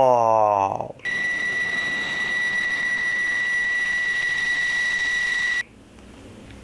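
A steady, high-pitched electronic tone over a hiss. It starts about a second in, holds for about four and a half seconds, then cuts off suddenly.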